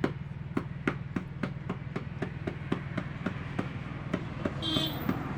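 A hammer tapping a puncture patch on a tractor tyre's inner tube in an even run of about three to four blows a second, to seat the patch firmly so it does not come loose. A steady low hum runs underneath.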